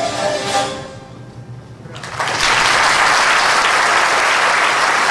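The last notes of a citera (Hungarian zither) ensemble ring out and die away within about a second. After a short lull, an audience breaks into steady applause about two seconds in.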